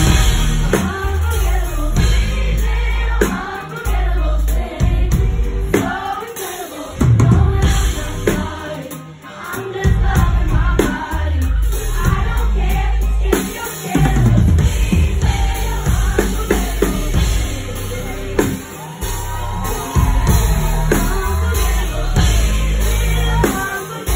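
Live pop band playing loud, with heavy bass and drums under a female lead singer's amplified vocals. The bass and drums drop out briefly about nine seconds in, then come back in.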